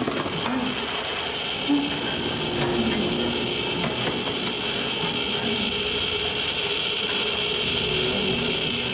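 Geiger-counter dosimeter crackling with scattered irregular clicks over a steady hiss and low rumble, the sign of intense radiation.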